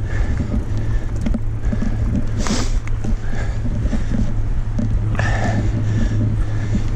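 Mountain bike rolling downhill on a dirt trail: a steady low rumble of wind on the camera microphone, with the bike rattling and knocking over rough ground. Two brief louder rushes of hiss come about two and a half and five seconds in.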